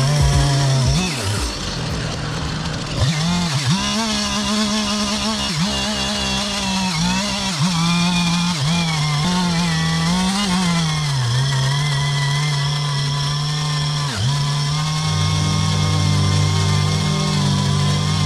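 Petrol chainsaw running at high revs while cutting wood. Its pitch dips briefly again and again as the chain bites, then picks back up.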